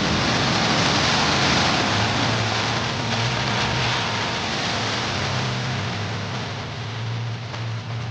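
Off-road vehicle's engine running low and steady under a loud, even hiss, with no single event standing out.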